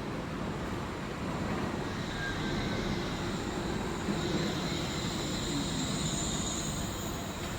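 Wuppertal suspension railway car running on its overhead rail: a steady rumble with a faint high whine from the steel wheels that grows stronger from about three seconds in.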